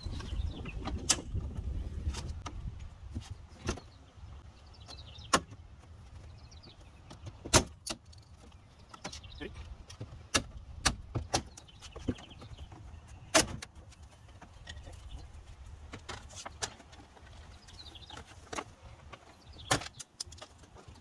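Hand tools and plastic trim being worked at a truck's front bumper and fender: irregular sharp clicks and knocks, about fifteen in all and spaced unevenly, with a low rumble during the first couple of seconds.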